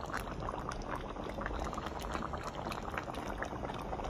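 Thick brinjal masala gravy simmering in a pan, bubbling with many small irregular pops.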